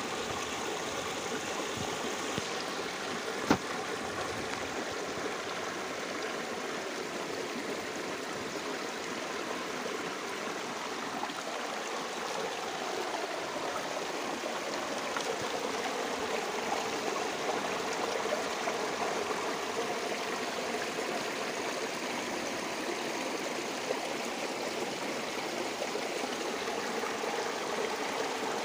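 Small river babbling over stones, a steady rush of flowing water. A single sharp click about three and a half seconds in.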